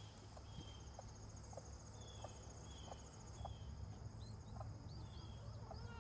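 Faint outdoor ambience: an insect, cricket-like, trilling steadily and high-pitched for the first few seconds. Short, high chirps come and go, more of them near the end.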